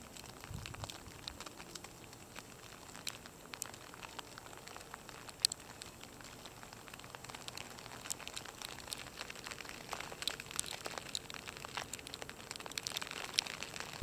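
Graupel mixed with wet snow falling, the pellets landing in a faint patter of scattered small ticks, a little denser in the second half.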